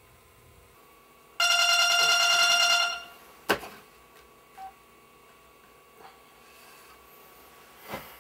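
An electronic alarm beeping loudly in a fast trill for about a second and a half, cut off just before a sharp knock as a hand slaps at it. A few faint bumps and rustles of bedding follow.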